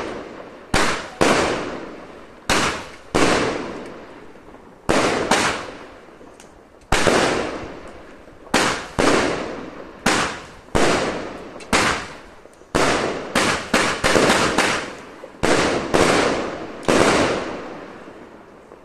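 Epic Fireworks Fire Fox barrage cake firing shot after shot, about twenty sharp bangs each trailing off over a second or so. The shots come in an uneven rhythm, bunch into a quick run a little past the middle, and stop a couple of seconds before the end.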